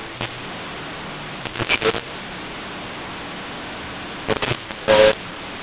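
Steady hiss of a room microphone with a few brief, quiet voice sounds, about two seconds in and again near the end.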